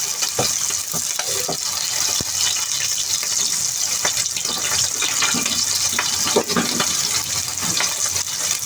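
A cornstarch-coated pork chop frying in oil over high heat: a steady sizzling hiss with scattered crackles and pops.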